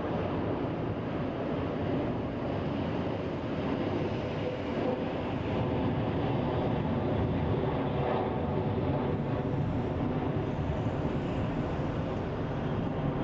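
Jet engine noise from an Airbus A380's four Rolls-Royce Trent 900 turbofans as it flies a low pass overhead: a steady deep rumble that grows a little louder about halfway through.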